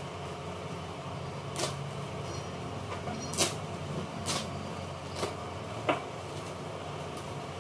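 Brown paper parcel wrapping being cut and torn open by hand: about five short, sharp rips and crackles of paper, over a steady low hum in the room.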